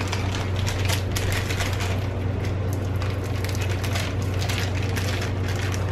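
Dense crackling and rustling close to the microphone, over a steady low hum.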